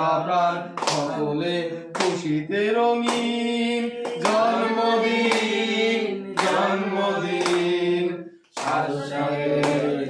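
Several voices singing together, with a sharp clap on the beat about once a second. The singing breaks off briefly about eight and a half seconds in, then resumes.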